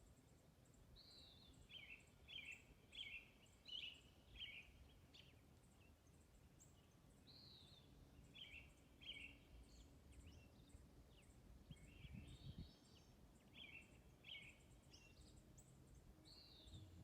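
Faint birdsong from a songbird repeating the same short song about every six seconds: a high down-slurred note, then a quick string of chirps. A low steady rumble sits beneath it.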